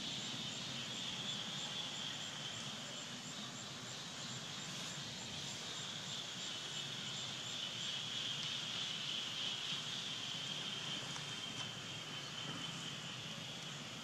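Steady high-pitched drone of an insect chorus in tropical forest, with faint high ticking at about three a second through the first half.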